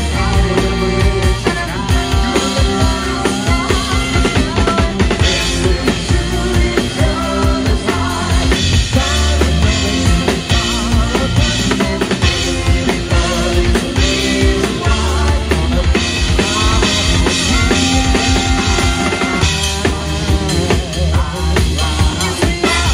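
Live swing band playing an instrumental passage, a busy drum kit with snare and bass drum under sustained instrument lines.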